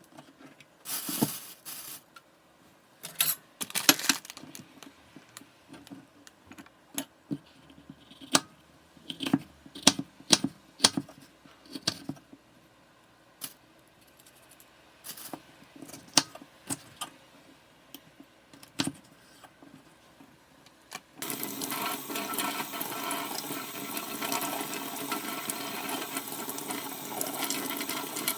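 Irregular light clicks and knocks, then a steady rush of running water that starts suddenly about three-quarters of the way through.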